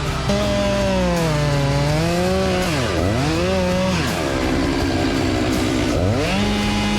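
Chainsaw engine running, its pitch falling and rising several times as the throttle is worked, with a sharp dip about three seconds in and a rougher, steadier stretch a little later.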